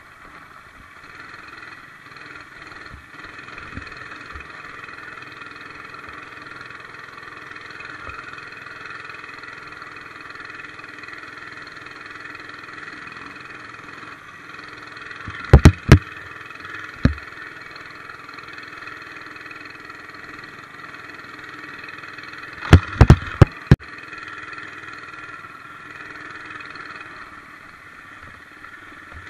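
Monster Moto 80cc mini bike's small single-cylinder engine running steadily while being ridden. Loud sharp knocks break in twice: a quick cluster about halfway through and another about two-thirds of the way through.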